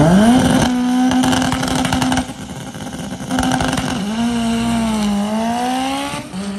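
A drag race car's engine revving. Its pitch climbs, holds steady for about two seconds and then drops away; it comes back, dips, and climbs again near the end.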